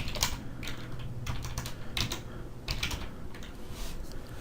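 Computer keyboard typing: irregular keystrokes clicking as commands are entered at a command prompt.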